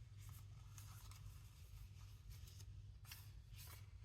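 Faint rustling of paper sheets being handled and laid down, several soft brushes, the clearest about three seconds in, over a low steady hum.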